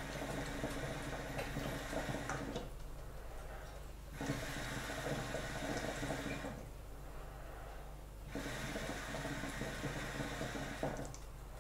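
Hookah water bubbling and gurgling as smoke is drawn through the hose: three long pulls with short pauses between, made while trying to get the bowl lit.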